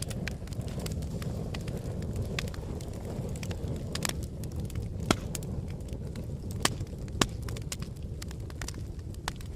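Fire burning with a steady low rush of flame and scattered sharp crackles and pops, the loudest pops about five and seven seconds in.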